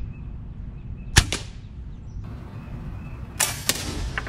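A single shot from an AirForce precharged pneumatic air rifle about a second in, a short sharp crack while it is being sighted in. Near the end come a couple of softer, rougher noises and a click.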